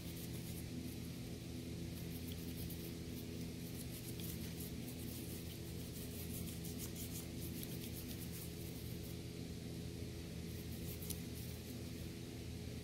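A small brush scrubbing the metal body of a Tecumseh carburetor during cleaning, making faint, repeated scratchy strokes. A steady low hum runs underneath.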